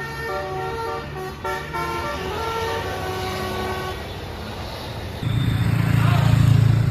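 A bus's Basuri 'telolet' multi-tone air horn playing a tune, its notes stepping up and down every fraction of a second, until about four seconds in. About five seconds in, a loud, low engine rumble starts suddenly.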